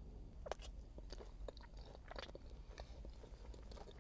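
Biting into and chewing a sweet honey garlic chicken wing: a sharp bite about half a second in, then irregular chewing clicks and crunches.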